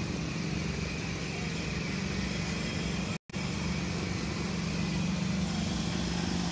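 Steady rumble of city traffic with a constant low hum under it, cutting out for an instant a little over three seconds in.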